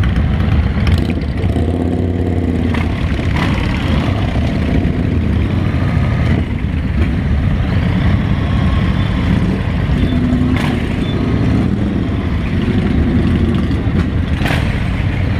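Several cruiser motorcycle engines idling and pulling away at low revs, with a brief rev about two seconds in and a few sharp knocks.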